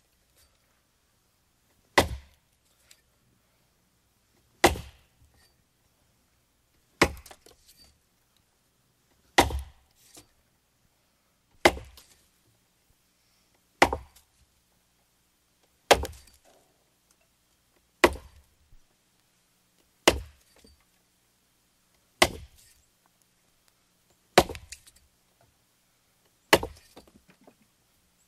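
An axe chopping into a tree trunk. There are twelve sharp wooden chops, one about every two seconds, and each is followed by a brief trail of small cracks from the wood.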